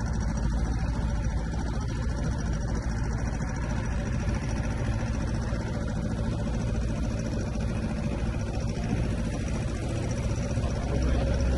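Tour boat's engine running steadily, a low drone under a wash of noise, growing a little louder near the end.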